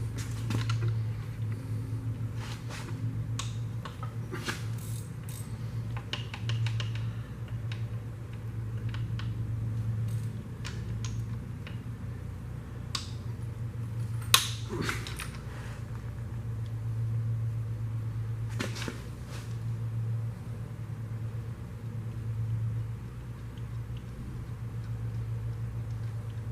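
Scattered metallic clicks and clinks of hand tools and engine parts being handled during an engine teardown, with one sharp, loud click about halfway through, over a steady low hum.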